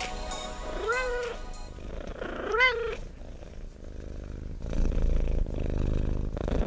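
A cat meows twice, each call rising and then falling in pitch, while background music fades out. About four and a half seconds in, a low cat purr starts.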